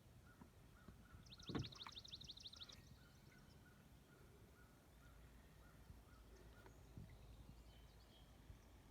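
Faint, rapid trill of a small bird, about ten high notes a second for roughly a second and a half, with a single soft knock near its start; otherwise near-quiet outdoor background.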